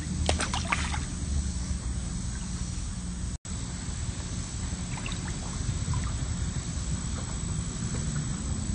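Swimming-pool water lapping and trickling gently around a dog standing in it, over a low steady rumble, with a few small splashes in the first second. The sound cuts out for an instant about a third of the way in.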